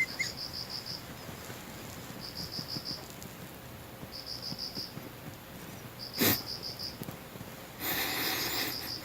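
A sleeping dog snoring: one short, sharp snort about six seconds in and a longer, noisy snore near the end. Behind it a cricket chirps in short high trills about every two seconds.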